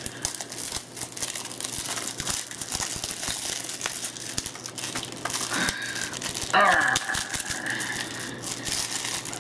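Plastic shrink wrap on a Blu-ray case being slit with a knife and peeled off, crinkling and crackling with small tearing sounds. About six and a half seconds in a louder squeal holds its pitch for about a second.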